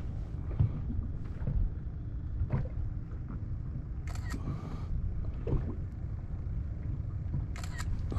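Low, steady rumble of wind and water against a fishing kayak, with scattered small clicks and two brief sharp hissing bursts, about four seconds in and near the end.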